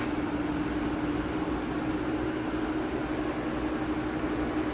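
Steady machine hum, a single even tone over a constant hiss.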